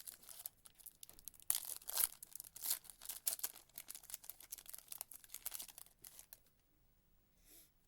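A foil trading-card pack wrapper being torn open and crinkled by hand, a dense run of crackling that is loudest a second or two in and stops about six and a half seconds in.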